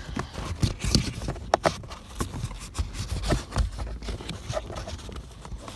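A pleated cabin air filter being squeezed and pushed into its tight plastic housing: irregular knocks, clicks and scraping as the filter's frame and pleats rub against the housing.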